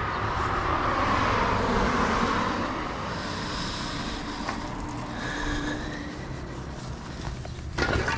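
A vehicle passing on the avenue: its road noise swells over the first couple of seconds and then fades. Faint steady tones follow, and there is a short sharp rustle near the end.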